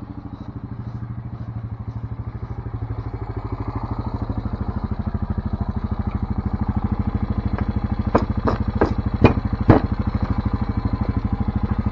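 ATV engine idling with an even, rapid pulse, getting louder as it is approached. Between about eight and ten seconds in, several sharp knocks and clacks come from handling the rope on the ATV's rear rack.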